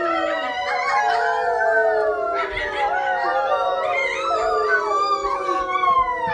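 A group of children howling together in imitation of wolves: many overlapping, drawn-out howls that slide slowly down in pitch.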